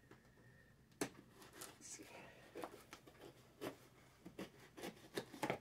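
A run of faint, irregular clicks, taps and rustles from hands handling objects on a desk, starting about a second in.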